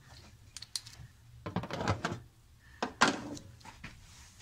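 Handling noises from work in a car's front trunk: a few light clicks, a short clatter about a second and a half in, and a sharp knock followed by more clatter about three seconds in.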